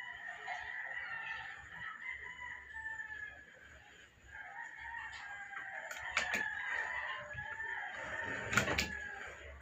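Birds calling steadily in the background, with two sharp knocks about six and eight and a half seconds in from a chisel being worked into a block of tire rubber on a stone bench.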